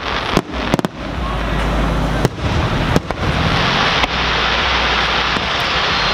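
Aerial fireworks shells bursting: several sharp bangs about a second apart, with a dense crackling hiss filling the gaps between them.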